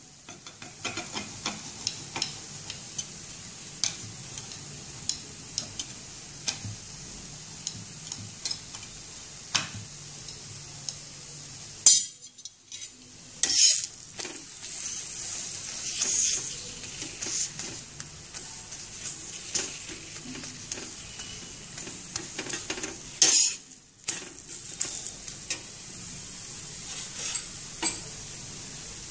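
Methi thepla frying in oil on a hot tawa, sizzling steadily. A metal spatula clicks and scrapes against the pan as the flatbread is pressed and turned, with louder scrapes about 12 and 23 seconds in.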